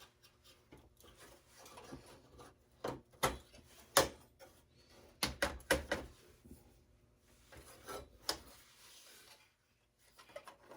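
Parts of a desktop computer being handled during dismantling: scattered clicks and knocks with some rubbing, in clusters, the loudest knock about four seconds in.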